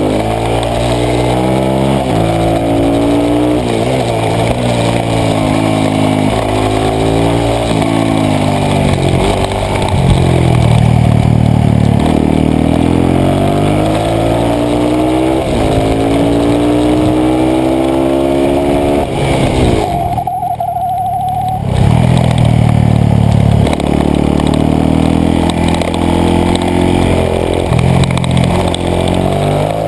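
Supermoto motorcycle engine heard from on board, revving hard and dropping back again and again as the rider accelerates, shifts and brakes through the corners.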